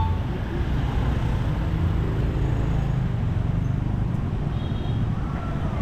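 Street traffic noise: a steady low rumble of passing engines.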